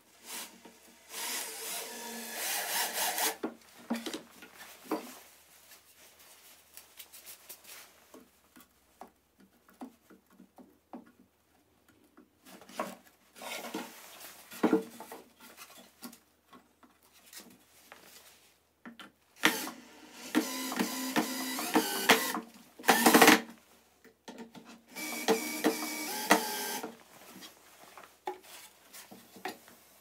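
Bosch cordless drill-driver driving screws into pallet wood in several runs of two to four seconds each, the motor speeding up and stopping as each screw seats. Between the runs, short knocks and clatter of wooden boards being handled and set down.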